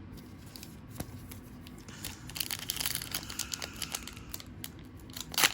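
A Donruss basketball card pack wrapper crinkling and being torn open. There is a stretch of crinkling from about two seconds in and a sharp, loud rip near the end.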